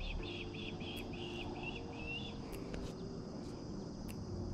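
Outdoor wildlife sound: a series of short chirps, about four a second, that stops a little over two seconds in, over a steady high insect drone. A few faint clicks are heard.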